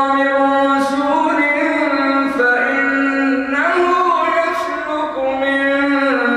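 A man chanting Quranic recitation in the melodic tajweed style, holding long drawn-out notes that step up and down between pitches, into a microphone.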